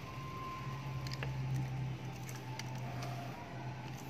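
A few small clicks and taps from a USB flash drive and OTG adapter being handled and pushed into a laptop's port, over a steady low hum.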